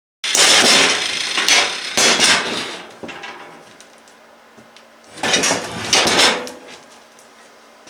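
Metalwork on a steel go-kart frame: two long, loud bursts of harsh noise, the first lasting nearly three seconds and the second about a second and a half, with faint clicks between.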